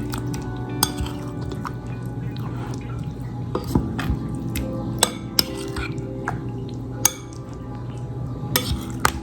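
Background music over the scattered clinks of a utensil against a bowl as raw chicken tenders are mixed through an egg batter.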